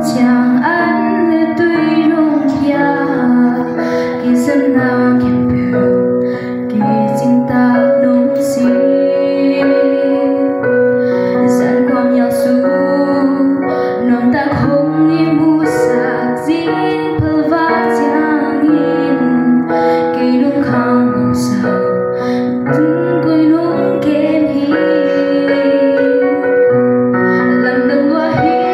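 A girl singing a solo into a microphone over keyboard accompaniment of long held chords.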